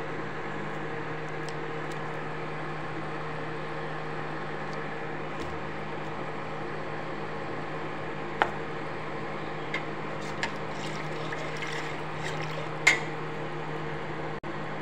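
Induction cooktop humming steadily with its cooling fan running, while a yogurt and gram-flour kadhi simmers in a steel pot. A few sharp clicks of a spoon and container come in the second half, the loudest near the end.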